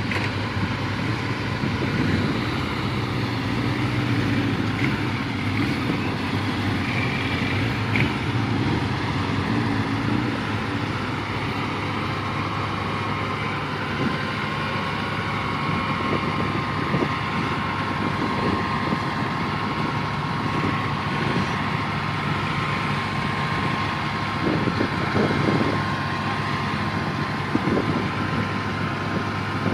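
Heavy-haul Volvo FH16 tractor unit's big diesel engine running steadily at low revs as it creeps forward pulling a 700-tonne load. A thin steady whine joins in about twelve seconds in.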